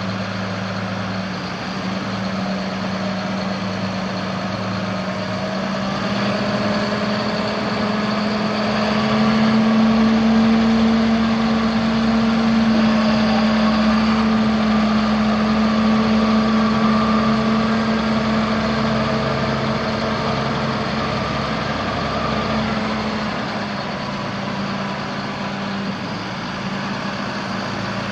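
John Deere 6210R tractor's 6.8 L six-cylinder diesel engine running steadily. From about six seconds in it turns a little faster and louder, then settles back near the end.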